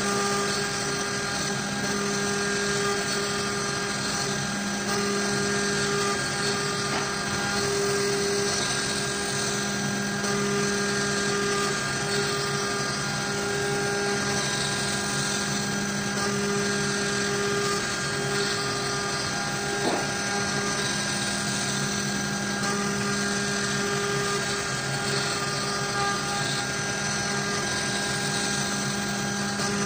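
Avid CNC router's spindle running steadily with an end mill cutting a pocket in wood: a constant whine over cutting noise, and a single short tick about twenty seconds in.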